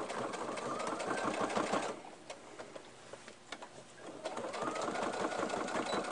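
Electric sewing machine stitching through a folded fabric seam in two runs. The first is already going and stops about two seconds in; the second starts about four seconds in, its motor pitch rising as it speeds up.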